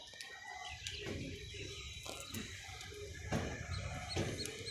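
Small splashes and knocks of a hand working in a water-filled plant tub, irregular and a few at a time.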